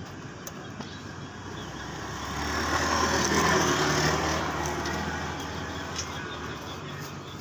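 A motor vehicle passing by: its engine and road noise swell to a peak a few seconds in, then fade away.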